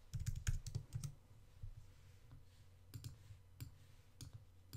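Computer keyboard keys tapped in a quick run during the first second, then a few single faint clicks spaced about half a second to a second apart.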